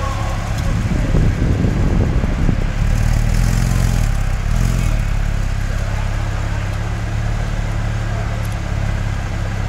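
Porsche 911 (991) Carrera S flat-six running at low revs as the car creeps forward, its exhaust steady and deep; the engine swells louder and rougher for a moment between about one and three seconds in.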